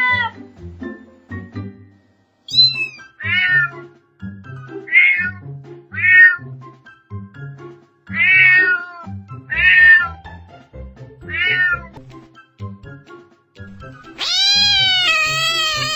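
A domestic cat meowing: about seven short meows a second or two apart, then a long drawn-out meow starting near the end, over quiet background music.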